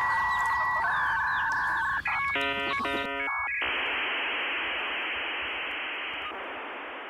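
Dial-up modem handshake sound effect: two steady electronic tones, a short burst of rapidly switching stacked tones about two seconds in, then a steady hiss that slowly fades out.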